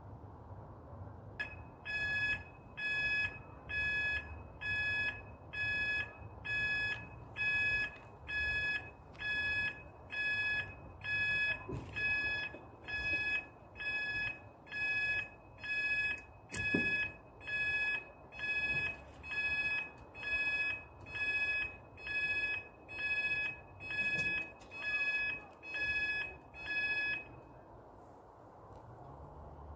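Level crossing warning alarm sounding as the road barriers lower: a steady high beep repeating about once a second, stopping a couple of seconds before the end.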